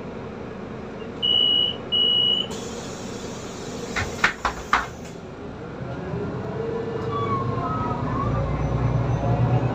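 Solaris Urbino 18 articulated city bus at a stop: two short high beeps, a hiss of air and several sharp clacks, typical of the doors closing. Then the diesel engine's note rises as the bus pulls away.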